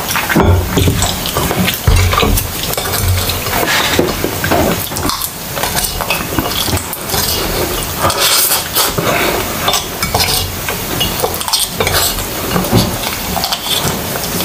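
Close-miked eating sounds: wet chewing of a mouthful of palabok noodles, with spoon and fork clinking and scraping on the plates, in a dense run of irregular clicks and crackles.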